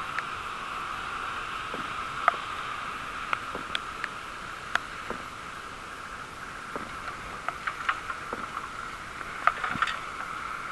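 Rain while cycling: a steady hiss with irregular sharp ticks of raindrops striking the camera, a few coming close together near the end.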